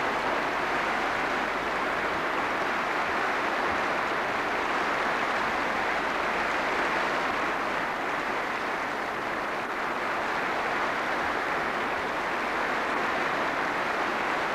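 Large audience applauding steadily, a dense, even wash of clapping.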